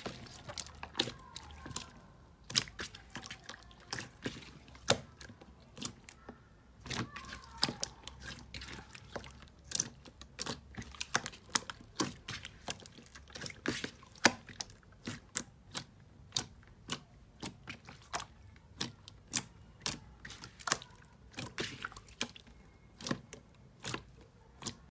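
Slime being squished and worked by hand: an irregular run of sticky, wet clicks and pops, several a second.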